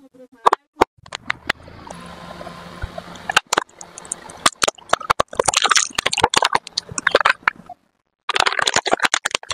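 A car tyre crushing small objects: a run of sharp cracks and snaps, then two stretches of dense crackling and crunching, one about halfway in and one near the end.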